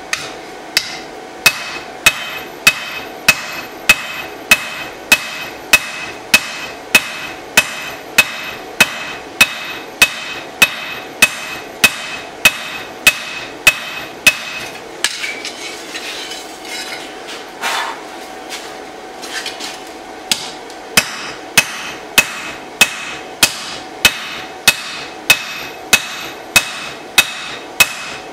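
Hand hammer striking a red-hot steel knife blade on an anvil, about two blows a second, each leaving a ringing anvil tone, while forging in the blade's edge bevel. The hammering pauses for a few seconds past the middle, then resumes at the same pace.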